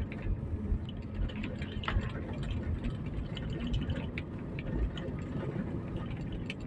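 Car driving on a concrete road, heard from inside the cabin: a steady low rumble of engine and tyres, with faint light ticks and rattles scattered through it.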